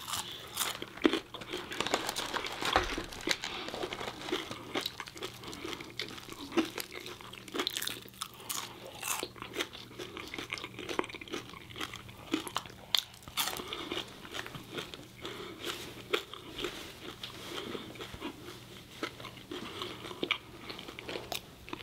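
Close-up eating sounds: biting into a crispy fried chicken sandwich and chewing French fries, with irregular crunches, clicks and wet chewing sounds.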